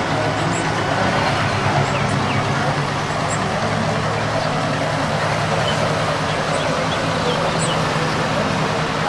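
Steady road traffic noise with a low engine hum running underneath, and a few faint, short high chirps.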